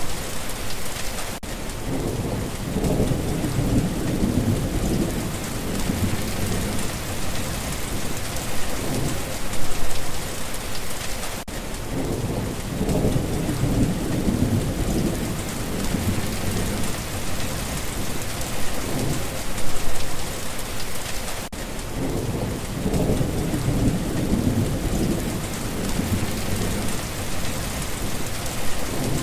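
Steady rain falling, with low rolling thunder rumbling three times, about every ten seconds.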